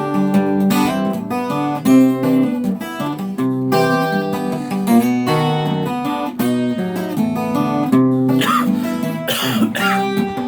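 Acoustic guitar played with picked notes and strummed chords, and a person coughing twice near the end over the playing.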